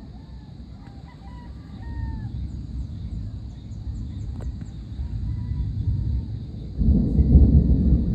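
Thunder from an approaching storm rumbling low and continuously, then swelling into a much louder roll about seven seconds in. A rooster crows over it in the first two seconds and again, more faintly, about five seconds in.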